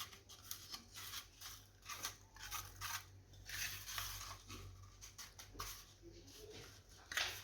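Fingers pressing and rubbing a gritty mix of grated lemon zest and sugar onto the buttered sides of a metal cake mould: faint, irregular scratches and scrapes.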